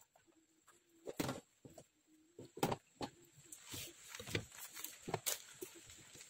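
Irregular knocks, clicks and light clatter of kitchen items being handled, such as plastic food containers lifted from a shelf and set down. A few louder knocks stand out among the softer clicks.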